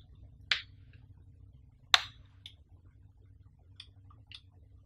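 Clicks and taps from handling a Sony HXR-MC88 camcorder: two sharp clicks about half a second and two seconds in, then a few lighter ticks.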